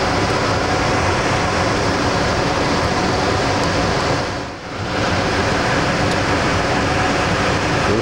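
Steady, loud rushing noise of room air handling, with a brief dip about halfway through.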